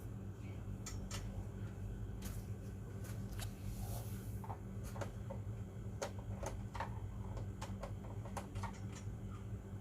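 Irregular light clicks and taps of a screwdriver working screws out of the back of a UPS battery backup's casing, with the screws and case being handled, over a steady low hum.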